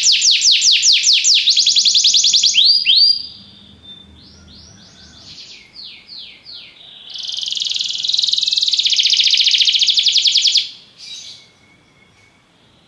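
Domestic canary singing. A loud, fast trill of repeated falling notes breaks off about two and a half seconds in, followed by a few slurred notes and a quieter phrase of slower sweeps. A second loud, fast buzzing roll runs from about seven to ten and a half seconds in, ending with a short single note.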